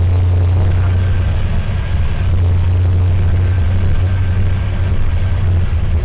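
Mercedes-Benz OH1618L-SB bus heard from inside the cabin: its rear-mounted OM904LA diesel running with a steady low drone. The air-conditioning compressor and its pulley add a faint high whine that comes and goes.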